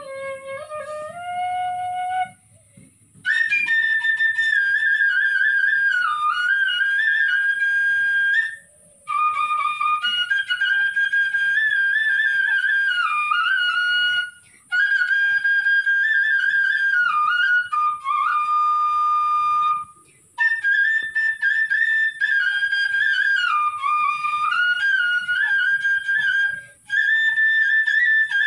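Bamboo transverse flute (Assamese banhi) played solo: a melody in phrases of a few seconds each, separated by short silent gaps. The first phrase is lower in pitch than the rest.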